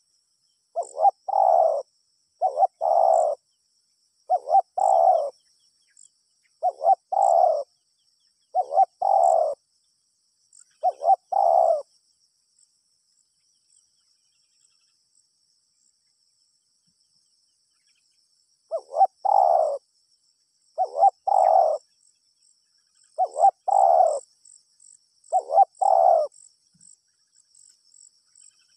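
A spotted dove cooing: a trained decoy bird giving its phrased 'kruk-kruuk' call over and over, one phrase about every two seconds. It stops for about seven seconds partway through, then gives four more phrases. Faint high insect chirping runs underneath.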